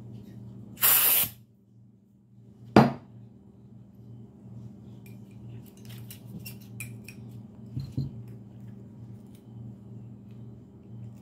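Aerosol spray can giving one short hissing burst onto a pistol slide about a second in, followed by a single sharp knock near three seconds. Faint small clicks and rubbing follow as the slide is wiped.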